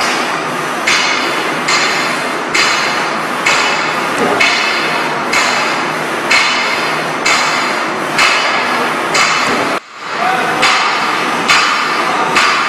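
Cut-off unit of an AMC-ZJK-120D paper edge protector production line striking at a steady pace, about one sharp hit a second, over the steady running of the line.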